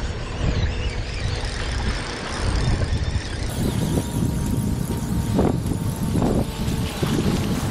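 Wind buffeting the microphone in gusts, a heavy rumble over the wash of small waves breaking on the breakwater rocks.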